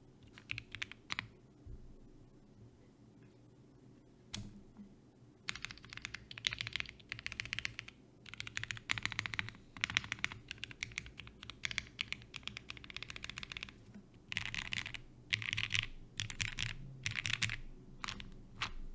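M.One Ginkgo 65 mechanical keyboard being typed on: lubed Gateron CJ linear switches under PBT keycaps, on an aluminium plate with case and plate foam. Runs of rapid key strokes come in bursts with short pauses, and a lull of about three seconds near the start is broken by a single keystroke.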